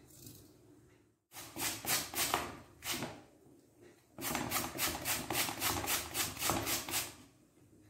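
Raw beetroot being grated on a flat metal hand grater: two runs of quick scraping strokes with a short pause between, the second run at about four strokes a second.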